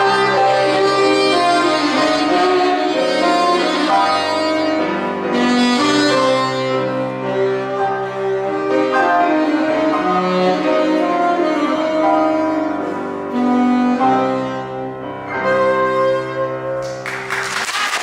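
Saxophone and grand piano playing a tango, the saxophone carrying the melody over the piano. Just before the end the music stops and applause breaks out.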